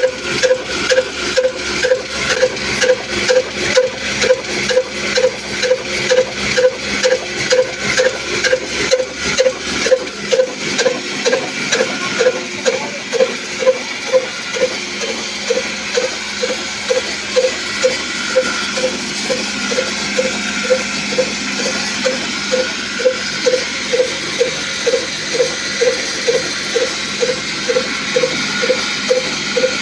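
Old Ruston Hornsby diesel engine running steadily with a slow, even beat of about two firing strokes a second, driving a flour mill. From about ten seconds in the beats become less pronounced under a steady hiss.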